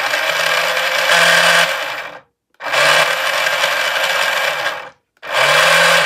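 Hyper Toy Pavati RC boat's small electric motor spinning the propeller through its reduction gear, run out of the water on throttle. It whirs in three bursts, two of about two seconds and a shorter one near the end, stopping dead between them.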